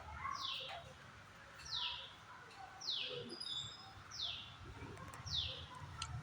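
A bird repeating a short, high call that slides downward in pitch, at an even pace of about one call every second and a quarter; a second bird chirps briefly about halfway through.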